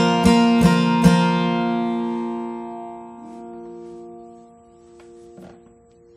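Acoustic guitar ending a song: a few last strums in the first second, then the final chord left to ring out and fade slowly.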